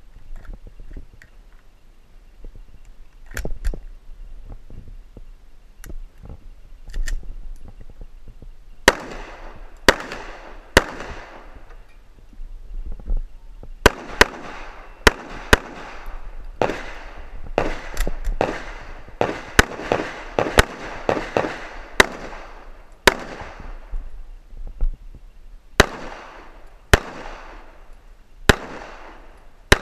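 Pistol shots from a CZ SP-01 Shadow fired during a practical-shooting stage, in quick pairs and short strings, each with an echoing tail. Before the first shot, about nine seconds in, there are only a few quieter clicks and knocks.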